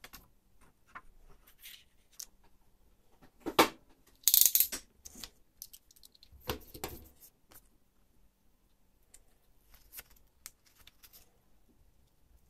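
Handling noises of paper craft work on a cutting mat: paper rustling and sliding, with a sharp knock about three and a half seconds in and scattered light clicks and taps.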